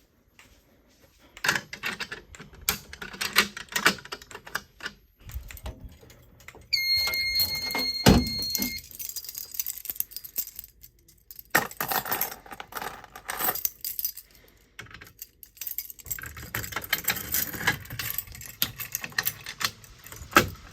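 Irregular clinking and rattling like keys jangling and small objects being handled. About seven seconds in comes a single high electronic beep lasting about two seconds.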